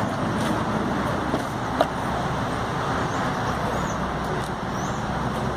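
Steady motor-vehicle noise, with a single sharp click a little under two seconds in.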